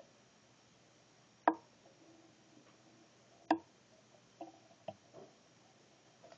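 Two sharp clicks about two seconds apart, then a few fainter ticks, over quiet room tone.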